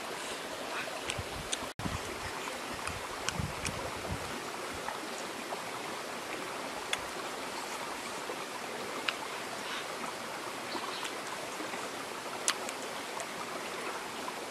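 Steady rushing of a flowing stream, with scattered faint sharp clicks over it; the sound cuts out for an instant about two seconds in.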